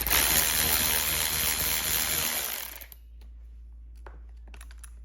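A handheld power tool running with a 6mm Allen bit to back out the bolt of a motorcycle handguard clamp. It runs for nearly three seconds, then stops abruptly, followed by a few light clicks of the loosened parts being handled.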